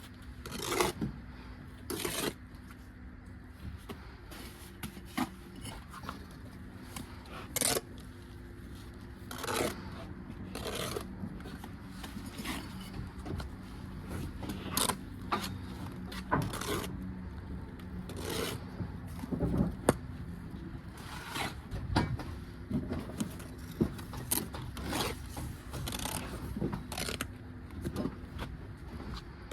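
Bricklaying sounds: a steel trowel scraping and spreading mortar, and bricks being set down, as irregular short scrapes and knocks. A faint steady hum runs underneath for the first half or so.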